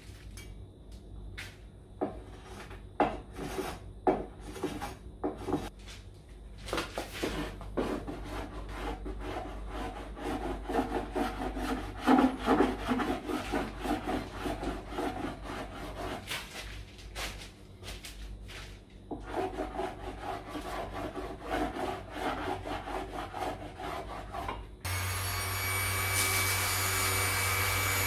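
A cloth rubbing and wiping across a hard epoxy-resin tabletop in irregular scrapes and squeaks. Near the end it gives way abruptly to a handheld electric orbital sander running steadily.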